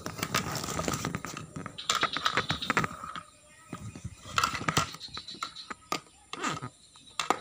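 Small plastic toy cooking-set pieces knocking and scraping as a toddler handles them: irregular clicks and knocks, busiest in the first three seconds, then scattered.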